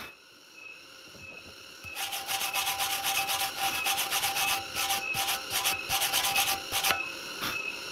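A flat stick of wood rubbed rapidly back and forth across a fresh weld bead on a rusty square steel tube, making a dry scraping. The rubbing starts about two seconds in and stops about seven seconds in.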